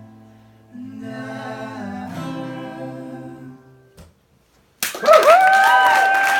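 Acoustic guitar strumming a final chord that rings and fades away, followed by a click about four seconds in. After a short silence, a much louder sound whose pitch slides up and then holds takes over near the end.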